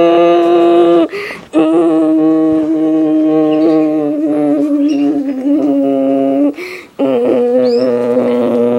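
A voice humming or singing long, slowly held low notes, breaking twice for breath. A few faint, short high chirps can be heard over it.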